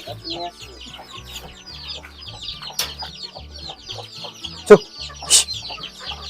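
A flock of country chicken chicks peeping nonstop in rapid high cheeps, with hens clucking among them; a hen lets out one loud squawk about three-quarters of the way through.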